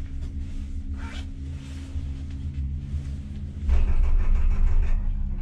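Ten-seat Doppelmayr detachable gondola cabin travelling on its haul rope, heard from inside: a steady low hum and rumble. About three and a half seconds in, a louder rattling rumble lasts about a second and a half, then eases.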